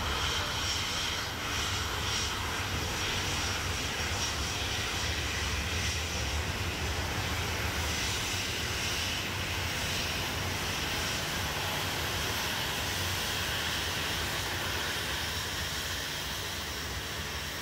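Boeing 737 jet engines running: a steady whine over a low rumble.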